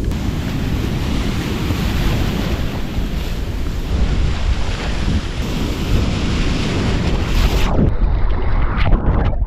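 Breaking surf and rushing whitewater with wind buffeting the microphone. About three-quarters of the way through, a wave washes over the camera and the sound turns suddenly dull and muffled.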